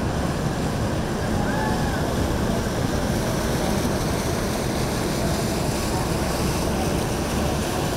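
Steady low rumble and water wash of a motor yacht cruising past, with wind on the microphone.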